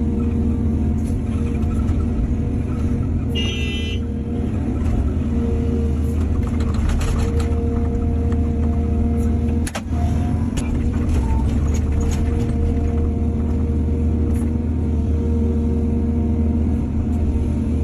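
Excavator diesel engine running steadily under load, with scattered knocks and clanks. A brief high-pitched squeal comes about three seconds in, and a sharp click with a short dip just under ten seconds in.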